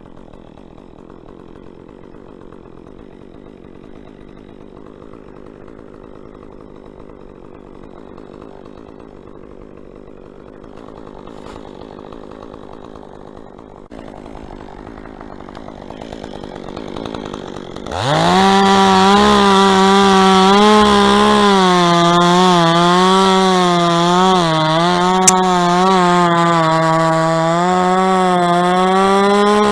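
Chainsaw heard faintly and steadily at first, slowly growing louder, then opened up to full throttle about two-thirds of the way in, its high engine note wavering as it cuts into dead palm wood. A single sharp click sounds during the cut.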